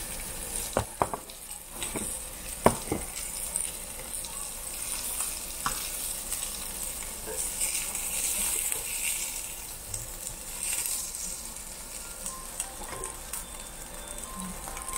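Thick slab of pork belly (samgyeopsal) sizzling and spitting fat on a slotted grill plate over charcoal. A few sharp clicks come in the first three seconds, the loudest a little before three seconds in.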